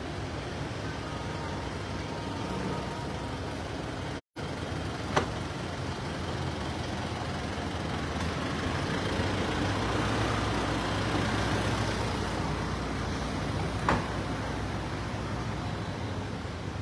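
Steady low rumbling noise of an underground car park. The sound drops out completely for a moment about four seconds in, and two short sharp clicks come about five seconds in and near fourteen seconds.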